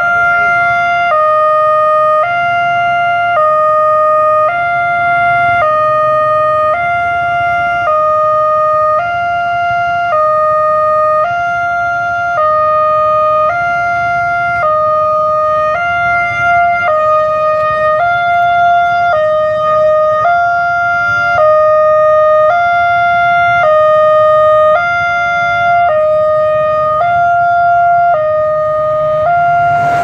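Railway level-crossing warning siren from a Wantech crossing alarm, sounding a steady two-tone alarm that switches between a higher and a lower pitch about once a second, warning that a train is approaching. Near the end the rumble of the arriving train starts to build under it.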